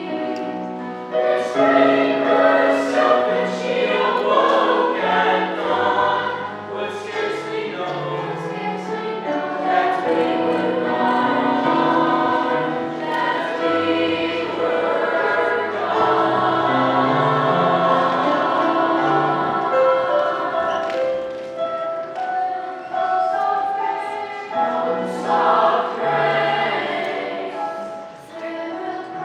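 A school choir singing in parts, mostly held notes that move from chord to chord.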